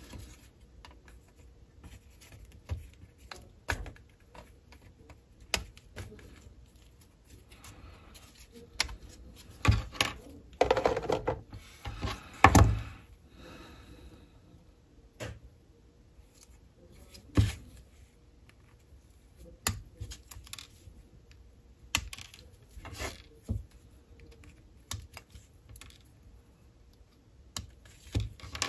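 Irregular small clicks and taps of hobby work on plastic model-kit parts: pieces being cut from the sprue and handled with tools on a work surface, busiest and loudest about ten to thirteen seconds in.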